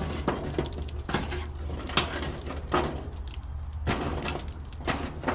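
Hot charcoal briquettes being raked and spread with a grill tool across the metal firebox of a grill: irregular scraping, clinking and knocking of coals and tool against metal.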